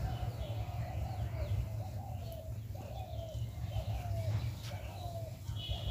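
A bird calling a short, low note over and over, roughly once every second or less, with faint high chirps of small birds and a steady low rumble underneath.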